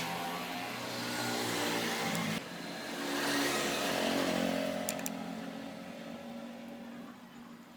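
A motor running with a steady pitched hum that swells and dips in loudness, with a sudden change about two seconds in and a couple of sharp clicks about five seconds in.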